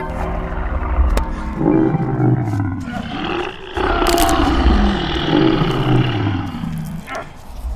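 Monster roars for a gorilla attack: several long roars one after another, each dropping in pitch, with a sharp hit about four seconds in.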